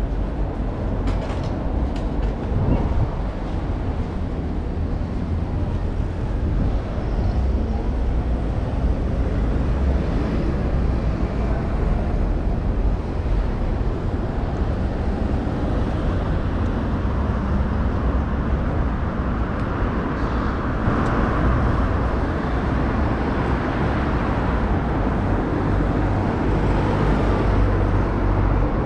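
City street ambience: a steady low rumble of vehicle traffic.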